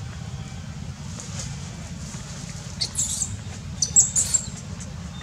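Shrill, high-pitched squeaks from a baby long-tailed macaque, in two short clusters about three and four seconds in, over a steady low rumble.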